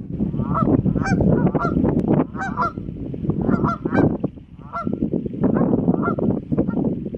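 Geese honking, a rapid string of short calls repeated throughout, over a constant low rumble.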